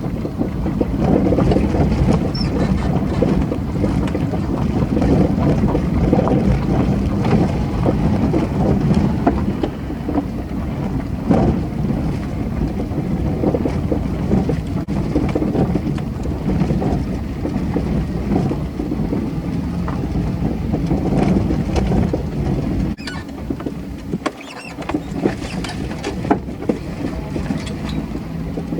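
Steady low rumbling noise with wind buffeting the microphone; it dips for a moment near the end.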